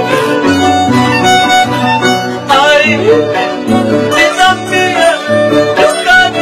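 Instrumental passage of Ayacucho folk music from Peru. A violin leads the melody over guitar, Andean harp and a pulsing bass line.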